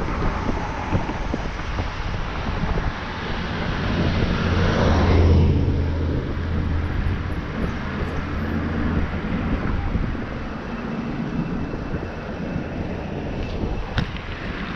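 Riding noise from an e-bike on a paved trail: wind and rolling noise, with a low hum that swells to a peak about five seconds in and fades out by about ten seconds. A single sharp click near the end.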